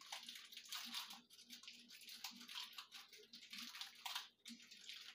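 Plastic bag crinkling and rustling faintly in quick, irregular bursts as crackers are handled in it.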